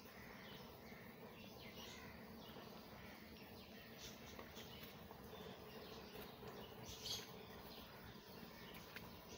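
Quiet garden ambience with faint, scattered bird chirps, the clearest about seven seconds in, over a faint steady hum.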